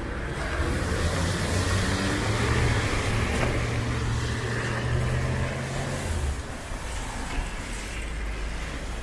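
Road traffic on a wet street: a pickup truck's engine running close by, with tyres hissing on wet pavement. The engine hum drops away about six seconds in, leaving the lighter traffic hiss.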